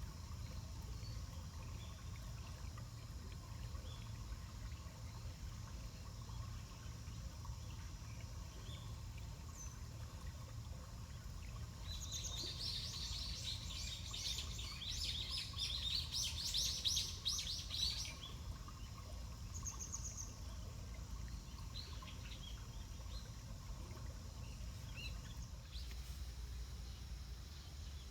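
Outdoor ambience with a steady low rumble; about twelve seconds in a bird sings a quick run of high chirping notes for about six seconds, with a few faint chirps elsewhere.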